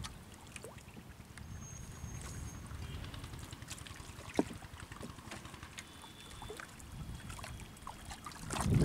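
Water trickling and dripping from a wet cast net as it is hauled hand over hand out of the water into a wooden boat, with light clicks and one sharper knock about four seconds in. A louder low rush comes in near the end.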